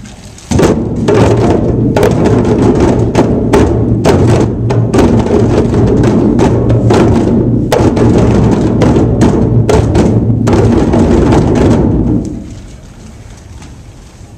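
A group of djembe drums struck by hand together in a loud, busy beat. It starts about half a second in and stops shortly before the end.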